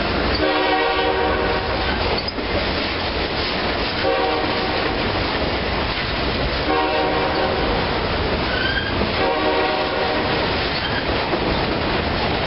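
Freight train of enclosed autorack cars rolling past at close range: a steady, loud rumble and clatter of steel wheels on the rails, with a pitched ringing that rises out of it and fades several times.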